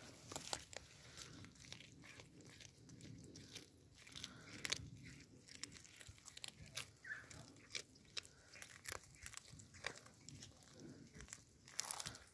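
Two cats chewing and crunching raw fish, in quick, irregular crunches.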